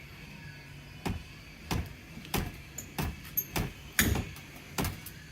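Bus door with a frozen, stiff hinge being worked back and forth, giving a series of sharp knocks and clunks about every half second to second, the loudest about four seconds in.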